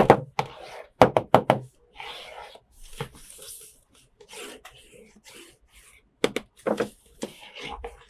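Hard plastic toy playset pieces being handled: a series of sharp clicks and taps, several in quick succession, with softer rubbing and rustling between them.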